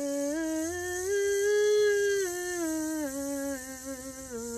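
A woman's voice buzzing a sustained voiced 'z' as a singing warm-up, one unbroken tone that climbs a scale note by note, is loudest at the top note in the middle, and steps back down. A steady hiss of the 'z' runs over the sung pitch throughout.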